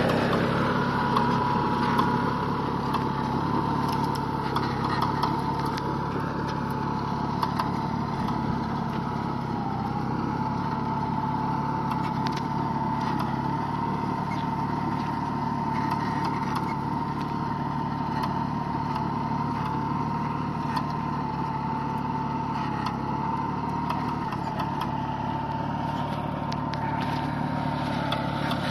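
Farmtrac Atom 26 compact tractor's three-cylinder diesel engine running steadily under load while pulling a disc harrow through dry soil, with a steady high whine over the engine note and light clatter from the implement.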